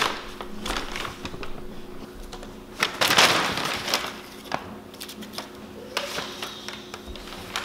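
Stiff brown kraft paper crinkling and rustling as a Bengal cat pounces on it and paws at it, with a loud rustle about three seconds in and scattered sharp clicks and taps.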